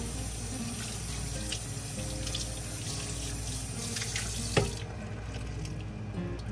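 Water running from a kitchen tap into a sink, with a sharp knock about four and a half seconds in.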